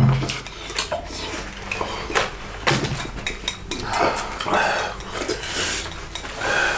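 Wooden chopsticks clicking and scraping against ceramic ramen bowls, with noodles being slurped.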